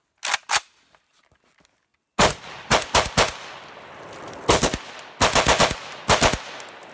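Two sharp clicks as the AK pistol is readied, then, about two seconds in, about a dozen rapid semi-automatic 7.62×39 shots from it in quick uneven groups, with an echo lingering between shots.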